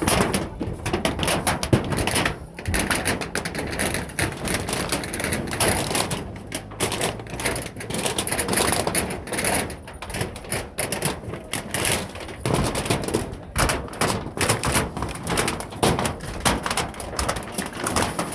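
Rapid, irregular clicking and clattering with scattered knocks.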